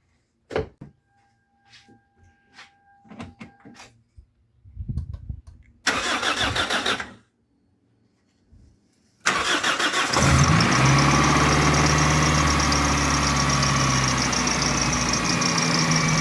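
Toyota Celica ZZT230's 1.8-litre four-cylinder engine being started on fresh oil after a flush: a few clicks, then the starter cranks for about a second without catching; it cranks again and the engine catches about a second later and settles into a steady idle.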